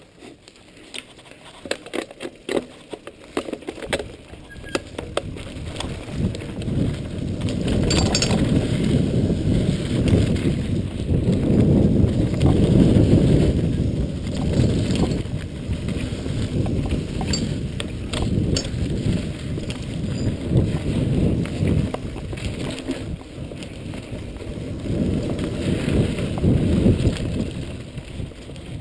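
Jamis mountain bike ridden on dirt singletrack, heard from a handlebar-mounted action camera: scattered sharp clicks and rattles in the first few seconds, then a rumble of knobby tyres on the trail and wind on the microphone that builds as speed picks up, with small rattles from the bike throughout.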